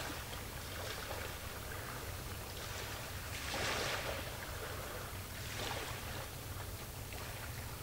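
Sea waves washing in, each a swell of hiss that rises and falls, the strongest about three and a half seconds in and another around six seconds. A steady low hum runs underneath.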